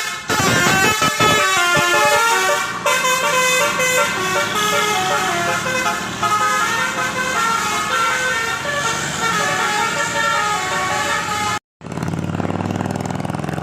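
Bus telolet horn, a Basuri multi-trumpet air horn driven by a DAV melody module, playing a fast tune of stepped notes. About 11.5 seconds in the tune cuts off abruptly and a steady engine sound follows.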